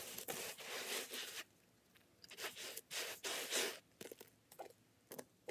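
Hands sweeping and pressing fine play sand in a sandbox, two long gritty swishes of sand rustling and scraping, then a few short light taps and ticks near the end.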